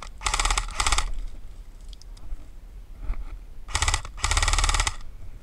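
Airsoft rifle firing on full auto in short bursts of rapid clicking shots. There are three quick bursts in the first second, then two more about four seconds in, the last the longest.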